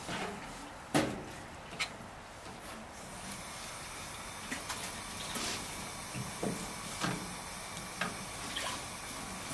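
A kitchen knife knocking on a plastic cutting board as squid is cut into pieces: one sharp knock about a second in, another shortly after, then a few lighter taps, over a faint steady hiss.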